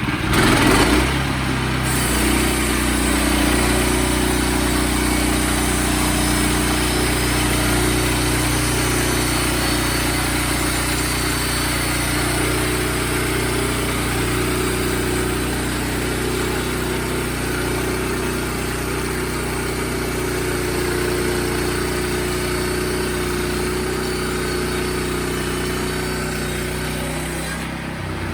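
Wood-Mizer portable band sawmill running, its engine holding a steady note under a constant hiss. There is a brief louder burst about a second in, and the engine note changes near the end.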